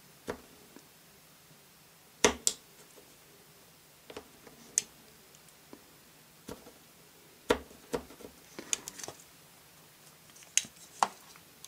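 Craft knife blade shaving the edge of a small piece of Lego plastic: scattered short, sharp clicks and scrapes at irregular intervals, the loudest pair about two seconds in.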